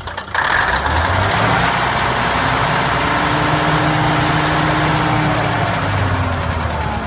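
Diesel railcar KiHa 2004's underfloor diesel engine, just started, revved by hand at the engine: the revs jump up suddenly, climb over about a second, hold, and ease back down near the end.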